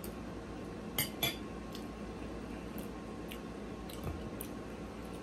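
A metal fork clinks twice against a ceramic plate about a second in as it is set down, followed by a few faint ticks.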